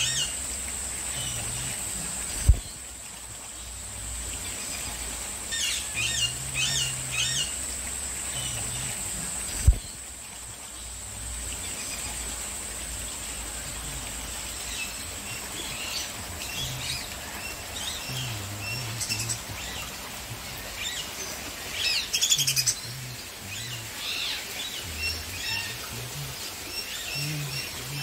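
Many birds chirping and calling in an aviary, short high calls repeating and overlapping. A steady high whine runs under them for the first ten seconds or so, and there are two sharp clicks about 2.5 and 10 seconds in.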